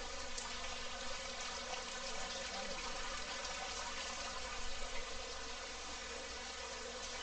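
Seawater trickling and bubbling in a live-seafood holding tank, over a steady buzzing hum.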